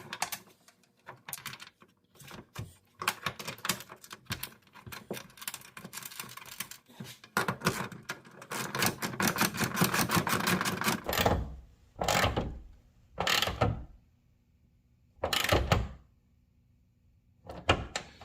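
Rapid runs of metallic clicking and clatter from hand tools working on a bolt, denser for a few seconds in the middle, followed by a few short, louder knocks separated by quiet.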